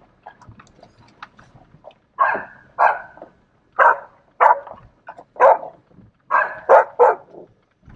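A dog barking repeatedly while it chases a vehicle. There are about eight loud barks in a loose run, starting about two seconds in, with a quick cluster of three near the end.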